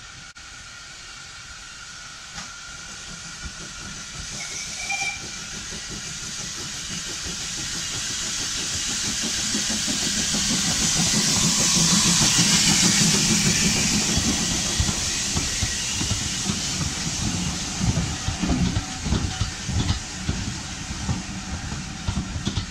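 Hawthorn Leslie No. 3931 saddle-tank steam locomotive approaching and passing close, its steam hiss growing louder to a peak about halfway through. Then its coaches roll past with a rumble and wheels clicking over the rail joints.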